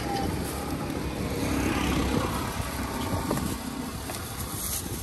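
Roadside traffic noise: a low rumble, with a vehicle passing that swells to its loudest about two seconds in.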